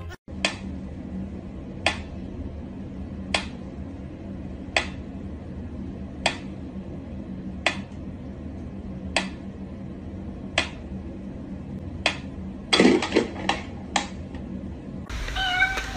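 Mechanical pendulum metronome ticking slowly and evenly, about one tick every one and a half seconds. Near the end a quick cluster of louder knocks and a thump breaks in over the ticking.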